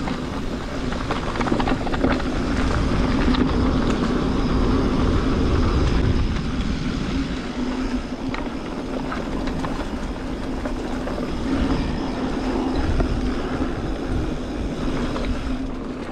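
Mountain bike riding down a dirt trail: a steady rushing of tyres and riding noise, with scattered knocks and rattles as the bike goes over rough ground.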